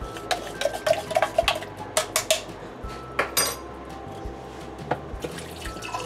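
Clinks and knocks of a cup being handled over a dishwasher's open drain sump, with some liquid sloshing. The knocks come thick for about three and a half seconds, then thin out.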